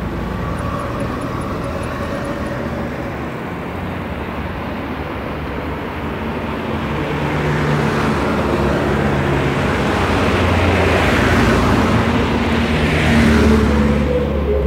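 Steady road-traffic rumble with a vehicle passing close. The sound swells over the second half, peaks about a second before the end with a falling whoosh, then starts to fade.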